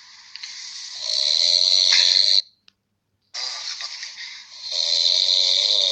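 A person snoring: several long snores in a row, broken by a sudden second of silence about two and a half seconds in.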